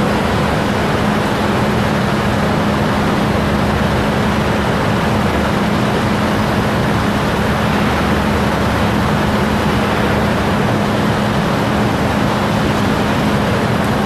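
Case 435 Series 3 skid steer's 3.2-litre four-cylinder turbo diesel running steadily as the machine drives and turns, with a constant droning tone under the engine noise.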